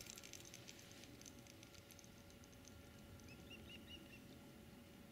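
Near silence with faint scattered ticks, and about three and a half seconds in a faint bird call: a quick run of about four short chirps.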